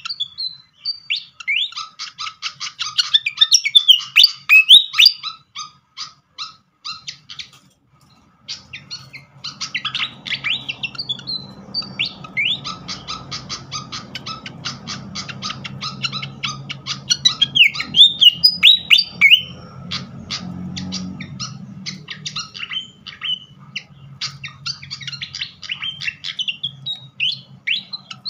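Malaysian pied fantail singing and chattering: fast runs of squeaky chirps and short whistled glides, with a pause of about two seconds some six seconds in. A low hum sits under the calls from about eight seconds in.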